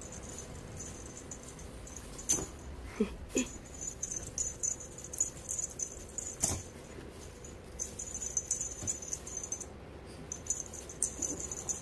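A 10-month-old orange-and-white tabby cat playing on a quilted blanket: irregular scratching and rustling of claws and paws on the fabric, with a few soft knocks as it pounces, the clearest about two and six seconds in.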